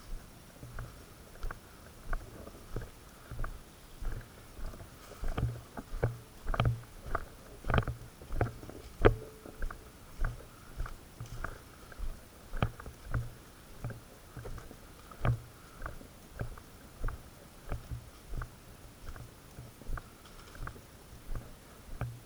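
Steady walking footsteps through grass and undergrowth, about two steps a second, with gear and clothing rustling. Several sharper cracks stand out between about five and nine seconds in.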